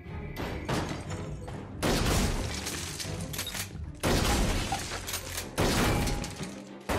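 Film soundtrack gunfire: rapid shots fired in several loud bursts, the first about two seconds in and the loudest about four seconds in, with music underneath.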